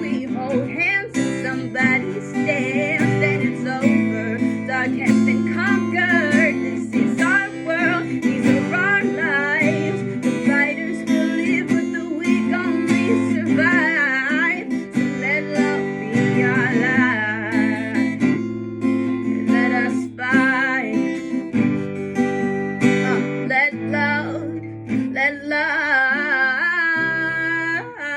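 Acoustic guitar strummed and picked in steady chords, with a voice singing a wavering melody without clear words over it.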